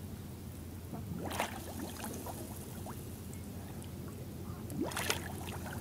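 Gentle lapping and trickling of lake water around someone standing waist-deep, over a steady low hum. There are two small sloshes, one about a second in and one near the end.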